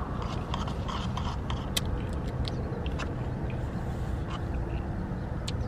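Small clicks and ticks of a straw rubbing in a plastic cup lid as a frozen slushy drink is stirred and sipped, most of them in the first two seconds, over a steady low vehicle rumble.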